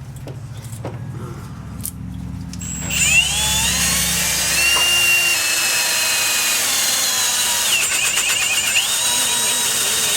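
Handheld power drill spinning up about three seconds in and running at a high whine, with a brief slowdown near the end. A low steady hum underneath fades out about halfway through.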